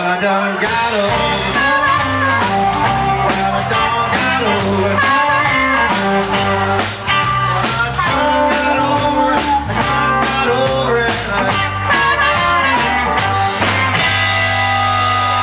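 Blues band playing live: a harmonica, cupped in the hands, wails bending notes over electric guitar, upright bass and a steady drum-kit beat. Near the end the drums stop and the band holds a chord.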